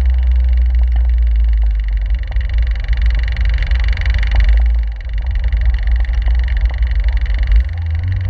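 Caterham 7 running at low speed in town, heard from the open cockpit, with a heavy low rumble. The sound dips briefly about five seconds in, and the low note shifts up near the end as the car picks up.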